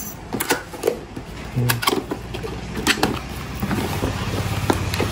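Cardboard laptop box being handled and its flaps folded open: a run of sharp scrapes, taps and crinkles. A low hum builds underneath in the last second or so.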